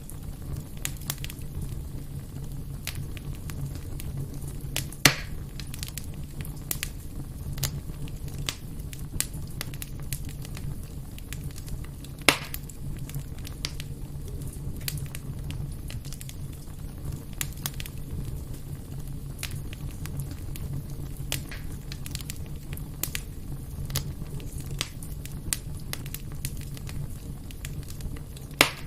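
Fire crackling in a fireplace: a constant scatter of small sharp pops over a low steady rumble, with a few louder pops, about five seconds in, about twelve seconds in and again near the end.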